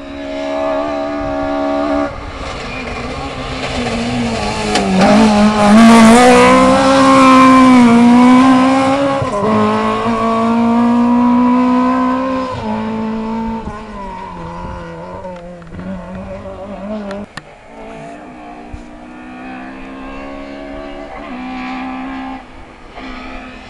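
A competition car's engine revving hard through the gears as the car climbs a hillclimb course, its pitch dropping at each gear change. It is loudest as it passes close about five to nine seconds in, then fades as it climbs away. Near the end a second car's engine can be heard approaching.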